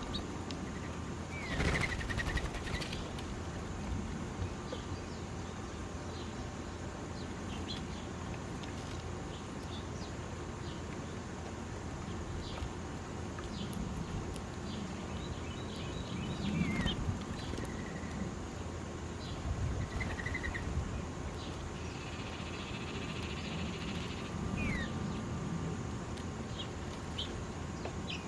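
Birds chirping with scattered short calls and quick falling notes, a burst of rapid twittering a little past two-thirds of the way through, over a steady low background rumble.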